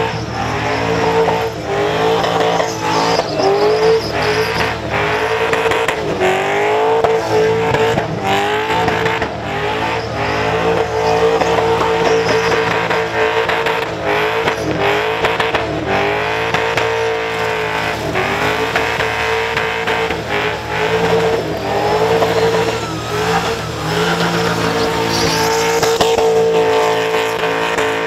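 Supercharged Holden Commodore doing a burnout: the engine is held at high revs, its pitch rising and falling over and over, while the spinning rear tyres squeal.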